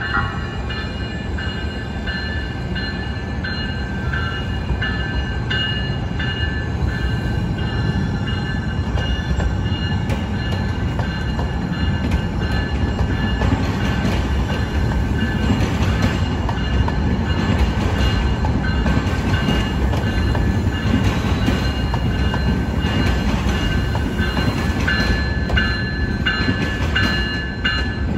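San Diego MTS light-rail trolley rolling past the platform, its wheels on the rails rumbling louder through the middle as the cars go by. A high chime repeats at regular short intervals throughout.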